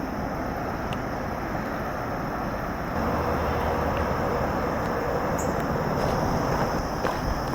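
Steady rush of highway traffic from a nearby interstate, growing a little louder about three seconds in.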